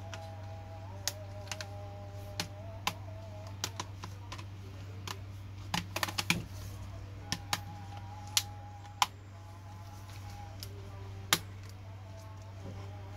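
Keys of a Dell Latitude E7440 laptop keyboard being pressed one at a time in scattered clicks, with a quick flurry of presses about six seconds in, over a steady low hum.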